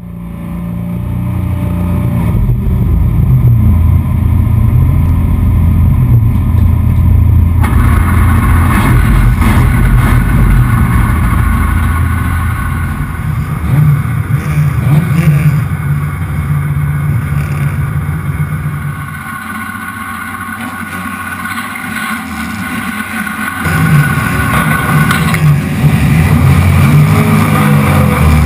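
Rallycross car engines running on the starting grid, heard close up from a bonnet-mounted camera: a deep, loud engine sound whose note rises and falls. It drops away for a few seconds past the middle, then comes back up.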